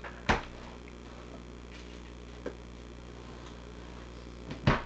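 Two sharp clicks about four seconds apart, with a fainter tick between them, over a steady low hum.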